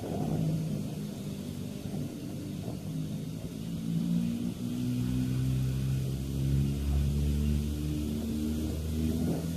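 Mazda 13B twin-rotor rotary engine on a 48 mm carburettor, running and revving under load, its pitch shifting in steps as the revs change; it gets louder about four seconds in.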